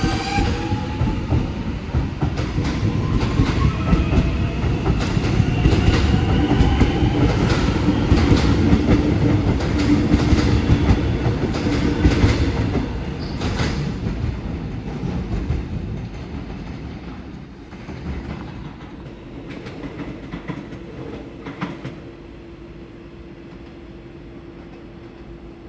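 Metro X'Trapolis electric train departing: the traction motors whine and rise in pitch as it accelerates, with the wheels clacking over the rail joints. It is loudest a few seconds in, then fades away over the second half, leaving a steady low hum.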